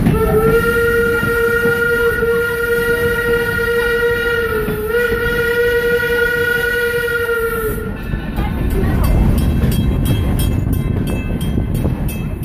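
Steam locomotive whistle sounding one long chord-like blast of about eight seconds, wavering briefly midway, over the rumble of the moving train. A quick regular ticking from the running train follows.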